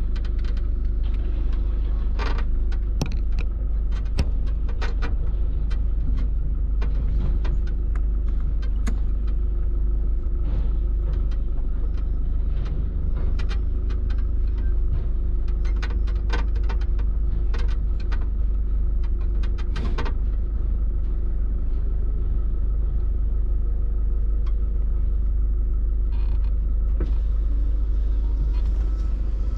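A ute's engine and road rumble heard inside the cab while driving, a steady low drone with a faint hum. Short sharp ticks and taps are scattered through it.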